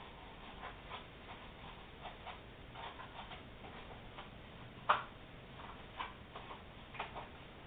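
Light, irregular clicks and taps, with one sharper click about five seconds in.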